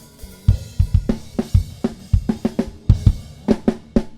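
Recorded rock drum kit playing a steady beat, with kick, snare, hi-hat and cymbals, run through a Calrec PQ1549-style equaliser with a shelf set to maximum cut.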